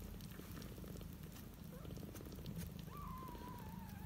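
A nursing cat purring steadily. About three seconds in, a cat gives one long meow that falls in pitch.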